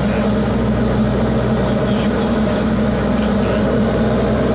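Diamond DA40's four-cylinder Lycoming IO-360 engine and propeller running steadily in flight, an even drone heard from inside the cockpit.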